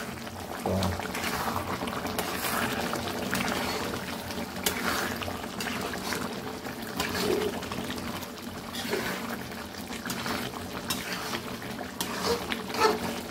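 Chicken curry gravy with gongura bubbling in a kadai while a spatula stirs it, scraping against the pan every so often.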